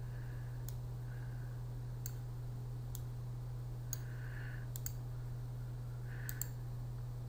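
Computer mouse button clicks, several single clicks and a couple of quick pairs spread over a few seconds, over a steady low hum.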